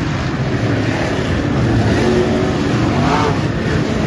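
Several dirt super late model race cars' V8 engines running together, hard on the throttle as they race through a turn. One engine's pitch rises near the end as it accelerates.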